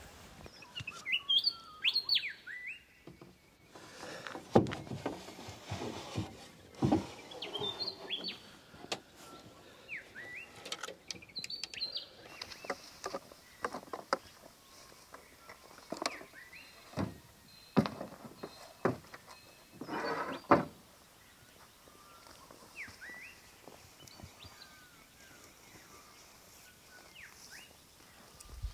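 Birds chirping with short, quick rising calls, mixed with a string of knocks and clunks from wooden gear being handled and packed into a canoe.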